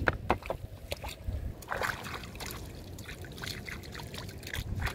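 Hands splashing in shallow pond water, trickling and dribbling, with a run of short sharp clicks and knocks.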